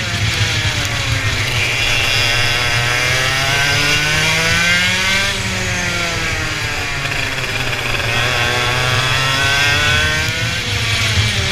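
Race car engines revving on a circuit. The pitch climbs for about five seconds, drops sharply, then climbs again near the end, over a steady low engine drone.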